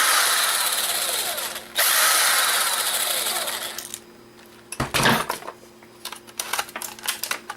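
Small electric screwdriver running in two bursts of about two seconds each, backing out tiny screws, its motor winding down at the end of each burst. Then a single knock and light clicking as small parts are handled.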